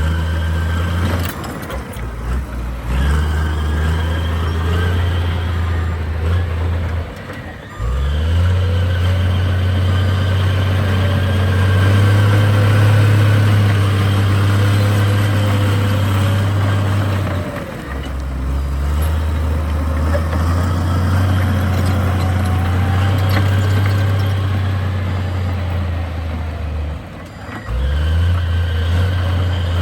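Heavy diesel engine of earthmoving equipment working hard. Its steady low drone drops off briefly and builds back up several times as the load changes.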